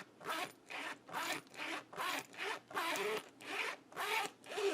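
A backpack zipper being run rapidly back and forth, about two strokes a second, each a short rasping zip.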